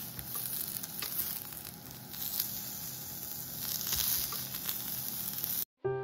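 Cubes of marbled beef and vegetables sizzling on a small ridged grill pan, an even crackling hiss with a few light clicks. The sizzle cuts off abruptly near the end.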